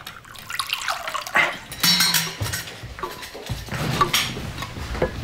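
Liquid poured from a stainless-steel vacuum flask into a ceramic mug.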